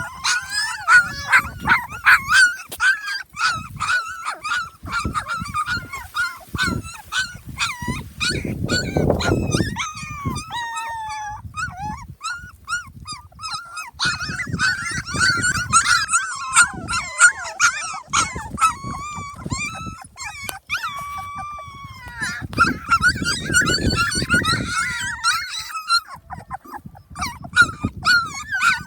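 Young puppies whimpering and squealing: a near-continuous stream of short, high-pitched cries, several overlapping at once. There are low rumbles about nine seconds in and again near the twenty-four-second mark.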